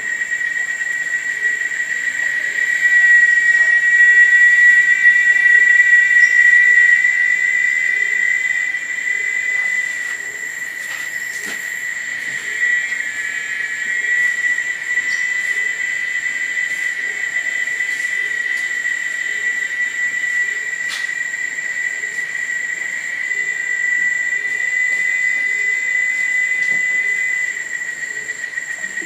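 Tropical forest insect chorus at dusk: a steady, high-pitched insect drone with a fainter, higher hiss above it. The drone swells louder for several seconds early on and again near the end, then eases off.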